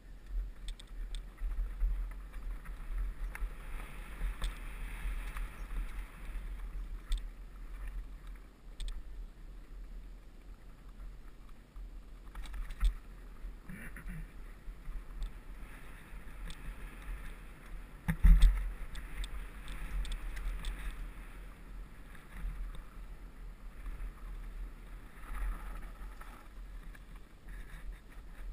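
Hardtail mountain bike rolling fast down a dirt trail: wind buffeting the microphone, tyres running over loose dirt and stones, and scattered clicks and rattles from the bike, with one heavy thud about 18 seconds in.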